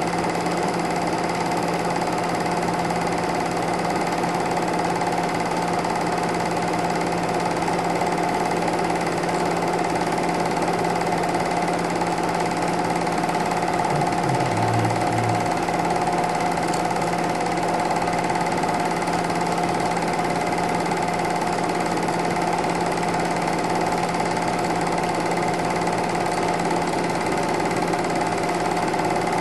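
Steady mechanical whirring and rattle of a Super 8 film projector running, an even drone that does not change.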